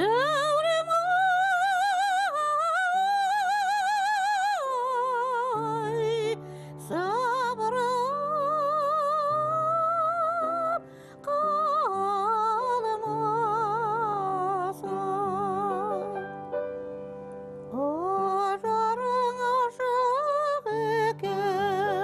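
A woman singing high, long-held notes in a classical, operatic style with wide vibrato, over a steady instrumental accompaniment.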